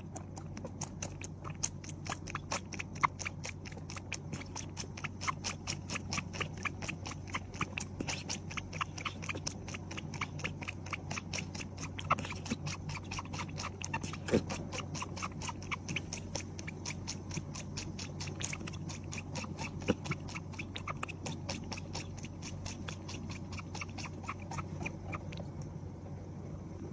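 Tabby cat suckling milk from a plastic baby bottle: a steady run of wet sucking clicks, about three a second, over a faint low hum.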